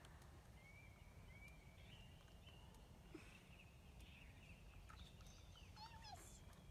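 Near silence: faint outdoor ambience with a low rumble and scattered faint, distant bird calls, a few quick chirps clustering near the end.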